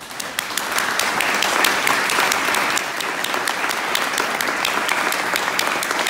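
Small audience applauding: a dense patter of many hands clapping that builds over the first second and then holds steady.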